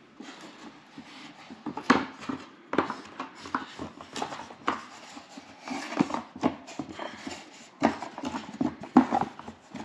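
A run of irregular knocks, taps and clicks on a hard surface, a few of them sharp and loud, as things are handled and moved about.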